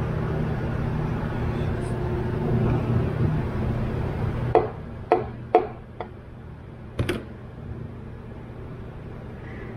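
Five sharp metallic clicks, spread over about two and a half seconds from about halfway in, as a steel pin is handled in the piston pin access hole of a Subaru EJ25 aluminium engine block. A steady low hum runs under the first half and stops.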